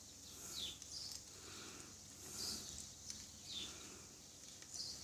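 Faint bird calls: a handful of short, high chirps that sweep downward, spaced about a second apart.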